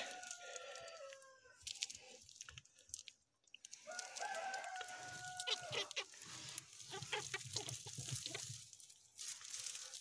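A rooster crows twice, once right at the start and again about four seconds in. Each crow is a held call that drops in pitch at the end. Between and under them come light rustling and crackling of straw in a rabbit nest box.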